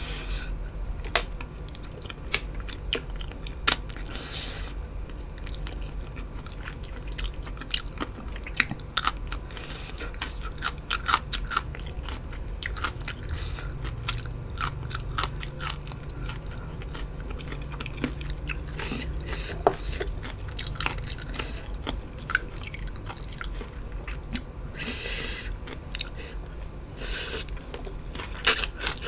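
Close-miked eating: chewing and biting with many sharp crunches and wet clicks, a mouth working through noodles, chicken feet and crisp raw vegetables.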